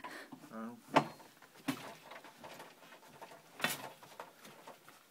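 Scattered knocks and clicks of a wooden floor loom's beam and bars being handled as a finished weaving is freed from it, the sharpest about a second in and another near the end. A short whine about half a second in.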